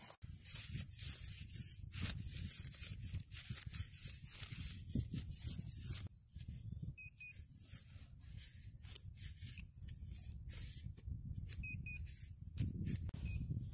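Serrated digging tool cutting and scraping into turf and soil, with rustling grass. Short electronic beeps from the metal-detecting gear come in two quick pairs, about seven and about twelve seconds in.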